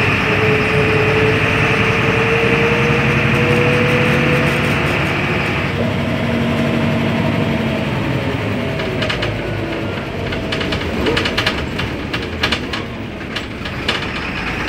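Inside a 2001 MAN NL222 city bus under way: the rear diesel engine and drivetrain run over road rumble, with a whine that rises slightly in pitch and changes about six seconds in. From about nine seconds in come a series of sharp rattles and knocks.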